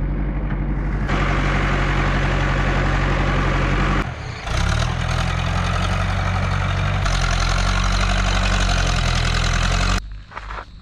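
JCB backhoe loader's diesel engine running steadily under load while it digs and pushes earth, with a constant hiss of noise over the engine. The engine sound drops away abruptly near the end.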